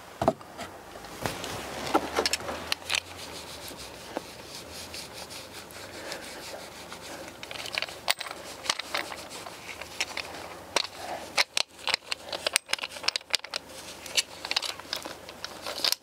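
A cloth rubbing and wiping down a replacement seatbelt and its inertia-reel retractor, with scattered sharp clicks and rattles as the belt's hardware is turned over in the hands. The clicks come thickest in the second half.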